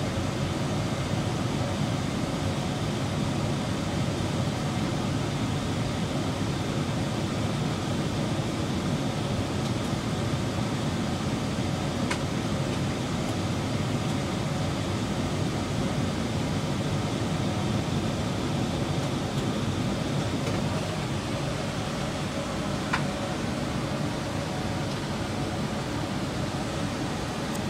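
Steady in-flight cabin noise of an airliner: an even rush of engine and airflow noise, heaviest in the low range, with two faint clicks.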